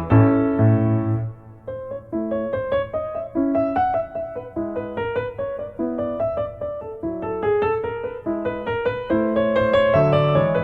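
Background piano music: a gentle melody of single notes over chords, thinning out a little past a second in and then building up again.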